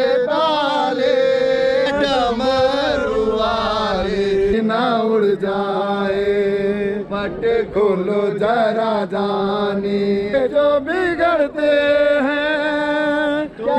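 A group of men chanting a Hindu devotional chant together, loud, with long drawn-out held notes between rising and falling phrases.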